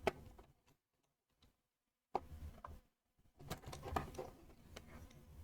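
Lego Technic plastic parts being handled and pressed together: a few sharp plastic clicks with light rattling as stiff new pins are pushed home. There is a silent gap of about a second and a half near the start.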